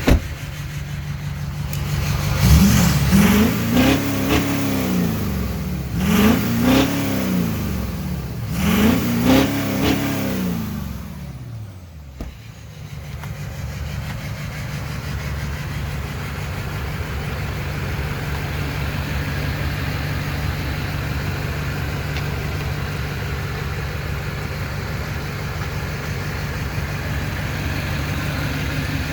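LMM Duramax 6.6-litre V8 turbo-diesel engine idling, revved up three times in quick succession and then settling back to a steady idle. It is running with a misfire on cylinder 7.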